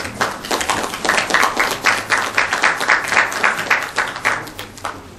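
Audience applauding: a quick patter of many hand claps that thins out and stops shortly before the end.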